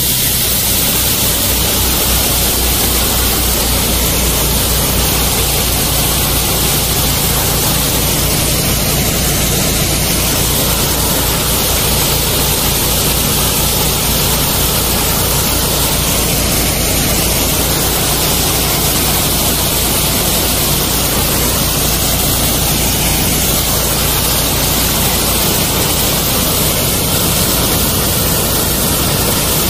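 High-pressure water jet hissing loudly and steadily from a sewer jetter's dredging nozzle, the engine-driven washer running on both engines (double mode), with a steady low hum underneath.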